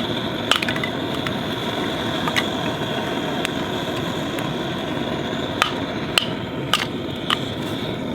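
Burning firewood crackling: a steady hiss from the fire with sharp pops and snaps scattered about once a second.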